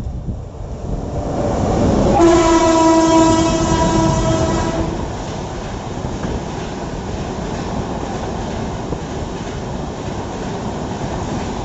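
Electric locomotive of an Indian Railways passenger train sounding one long horn blast of about two and a half seconds as it comes close. The steady rumble and wheel clatter of the passenger coaches running past follows.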